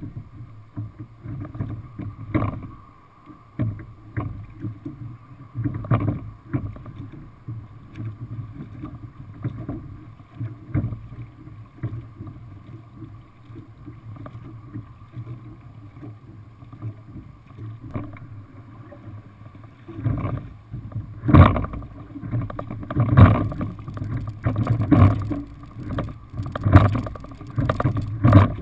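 Single racing scull being rowed, heard from the boat itself: a knock from the oars and rigging at each stroke over the wash of water and wind. About 20 seconds in, the strokes get louder and come faster, roughly one every two seconds, as the rower moves from an easy warm-up pace to full speed.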